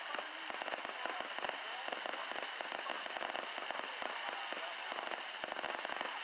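Fireworks crackling: a dense, unbroken run of sharp crackles and pops, many each second.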